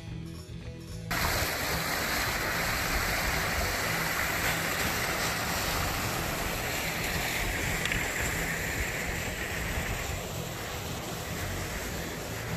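Music for about a second, then an abrupt cut to steady rushing creek water, with a low rumble of wind on the microphone.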